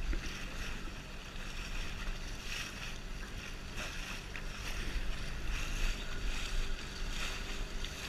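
Outboard motor on a small inflatable boat running steadily under way, a low even hum, with water splashing along the hull.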